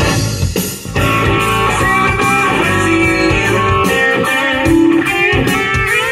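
Guitar-led music playing through the car's factory Bose stereo, streamed from a phone over a Bluetooth adapter; the playback is clean, with no static, hissing or buzzing.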